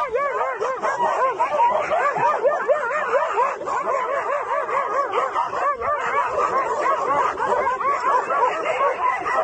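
A dog yipping and whining without pause, a quick run of short cries that rise and fall in pitch, about three a second.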